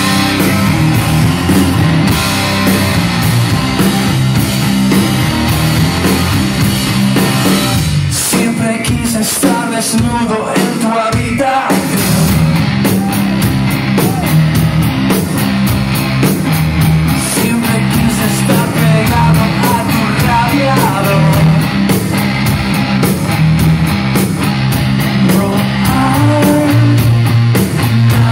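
Live rock band playing loud, with electric guitars, bass and drums. About eight seconds in the band drops to a sparser passage for a few seconds, then the full band comes back in.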